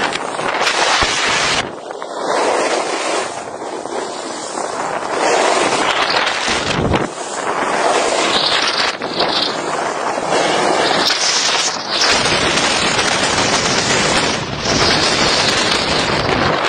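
Wind rushing over the microphone of a camera moving downhill on a ski slope, mixed with the hiss and scrape of skis on packed snow. The noise swells and eases every couple of seconds.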